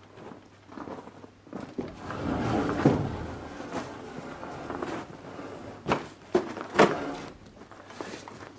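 Wooden scraping and knocking as long wooden skirting boards are shoved into a high storage spot: a rough sliding stretch about two seconds in, then three sharp knocks about six to seven seconds in.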